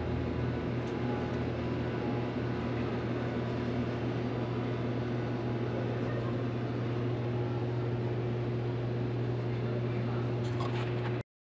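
Steady low electrical-mechanical hum of a refrigerated ice cream display freezer running, with an even whir over it; it cuts off suddenly near the end.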